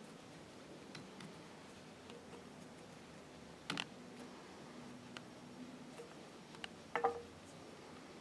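Small metal clicks and light handling noises from an industrial sewing machine head as its parts are fitted and adjusted by hand, with two sharper clicks, one about halfway through and one near the end.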